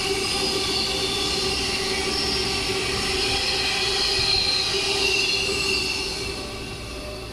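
Freight train of tank wagons rolling past on the adjacent track, its wheels squealing in several high steady tones over a rumble; it fades away near the end as the last wagons pass.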